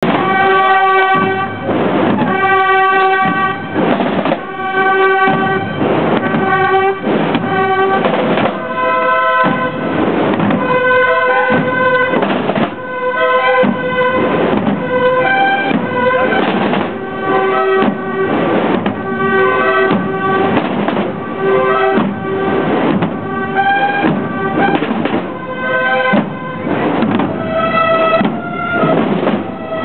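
Holy Week procession band of bugles and drums playing a march: held bugle notes over steady drumbeats from many drummers.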